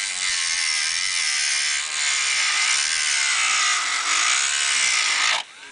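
Dremel rotary tool with a grinding stone grinding the aluminium edge of an AR-15 upper receiver's ejection port to finish it. A steady, high-pitched grinding whine that wavers slightly as the bit presses on the metal, then stops near the end.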